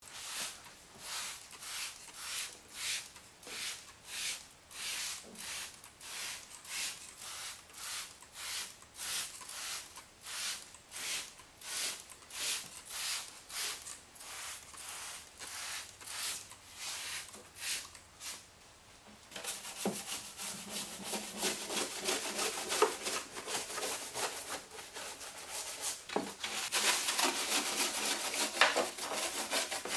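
Hand scrub brush scrubbing a snowmobile's aluminum tunnel wet with cleaner, in even back-and-forth strokes about two a second. About two-thirds in it turns into faster, louder scrubbing, louder still near the end.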